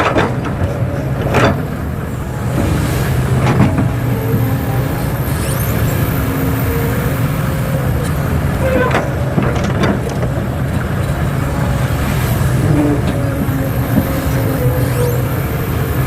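Working machinery running steadily, a low engine-like rumble broken by scattered short clicks and knocks.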